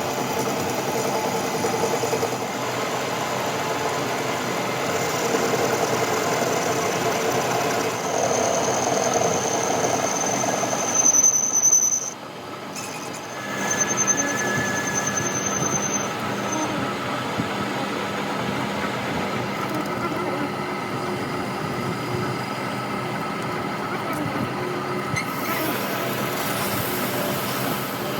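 A power tool or machine working metal runs steadily, with a thin high-pitched squeal rising over it twice in the middle and a brief drop in level between.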